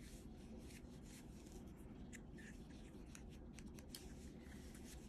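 Faint, irregular scratchy strokes of a colouring pencil on paper, short strokes coming in quick runs over a low room hum.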